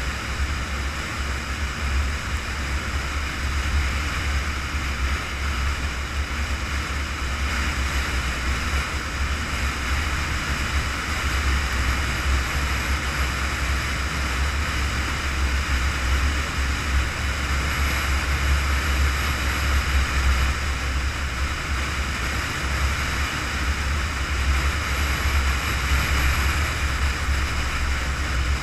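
Steady wind rush and tyre-on-road noise of a vehicle driving at highway speed, with a heavy low rumble underneath and a constant hiss.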